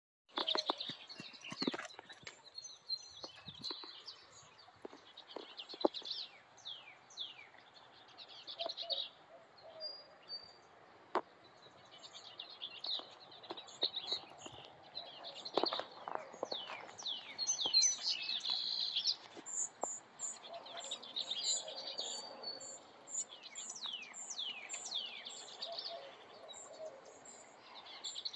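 Several wild birds chirping and calling, with many quick falling whistles and, in the second half, a run of short high notes repeated about once or twice a second. Scattered sharp clicks break in now and then.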